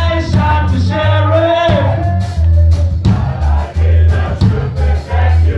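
Live rock band playing loud, with a sung vocal line over a pulsing bass line and drum hits; the singing is strongest in the first couple of seconds.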